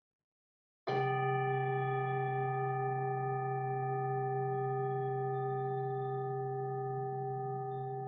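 A struck metal healing instrument, bell-like, sounds once about a second in and rings on with several steady pitches over a low hum, fading slowly.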